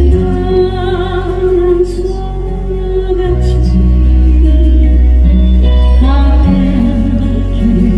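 Slow Korean ballad music: long held bass notes that change every few seconds under a melody with vibrato.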